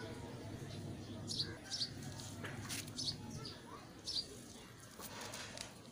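Small birds chirping: a handful of short, high, falling chirps at scattered moments, over a faint steady low hum.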